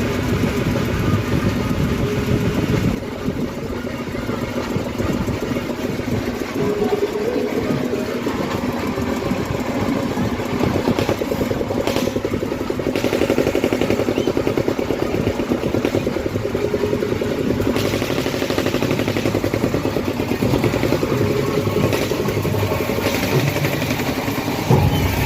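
An engine running steadily with a fast, even pulse, typical of the motor or generator powering a night-market ride.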